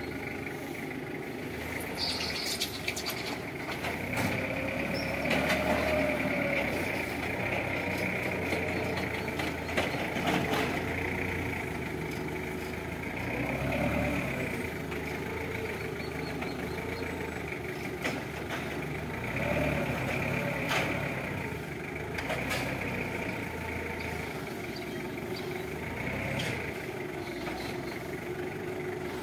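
Forklift engine running, its pitch rising and falling several times as the machine drives, reverses and lifts a loaded pallet, with a steady high whine and a few sharp knocks from the forks and pallets.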